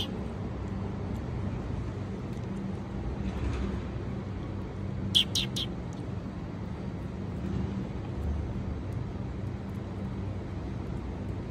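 Steady low mechanical hum, with a quick run of three short, sharp, high-pitched chirps or clicks about five seconds in.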